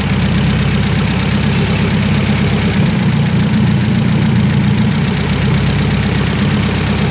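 Carbureted gasoline engine on a test stand idling steadily after its distributor was reinstalled and the ignition timing set; it runs, which is taken as the sign that the timing is right.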